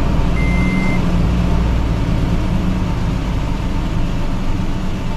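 2010 Toyota Tacoma engine idling steadily just after an oil and filter change, circulating the fresh oil. A high electronic warning chime beeps at an even pace and stops about a second in.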